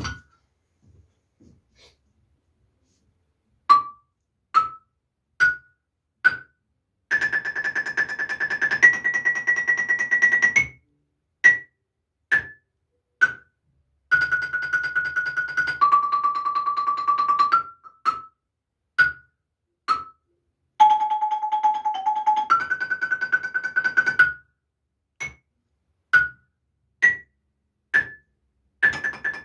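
A simple melody played on a mallet keyboard percussion instrument: single struck notes about a second apart alternating with long rolls on held notes, each roll moving to a new pitch partway through. A knock sounds at the very start, before a few seconds of near-quiet.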